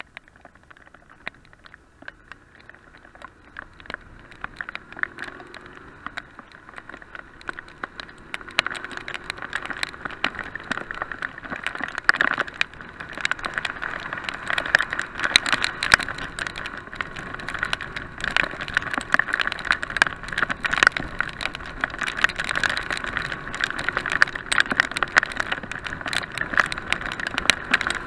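Rain striking the action camera on a moving motorcycle, a dense crackle of drop impacts over a rushing hiss, sparse and quiet while stopped, then growing much denser and louder from about eight seconds in as the bike gathers speed. The engine is faint underneath, its note rising as the bike pulls away.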